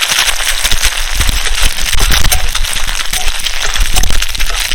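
Bay leaves, dried chillies and ginger sizzling and crackling in hot oil in a kadai, with a low rumble underneath from about a second in.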